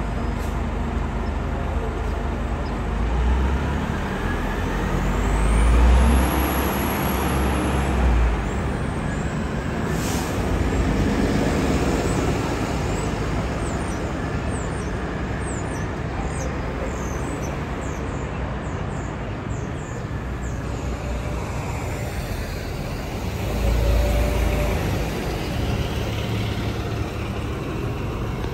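Diesel city transit buses pulling away from the curb and driving past, their engines droning, swelling louder twice. One short air-brake hiss comes about ten seconds in.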